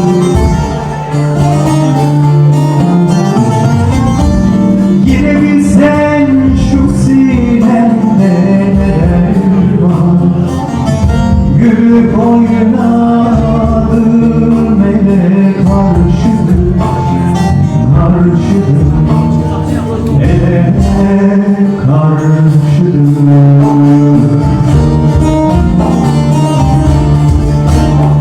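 Live band music, a Turkish folk song played mostly as an instrumental passage with sustained melody lines over a steady bass. A voice sings one line near the end.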